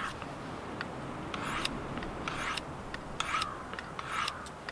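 Steel folding-knife blade drawn across the ceramic hone of a field sharpener set at 20 degrees, honing the edge. It gives short scraping strokes, about one a second.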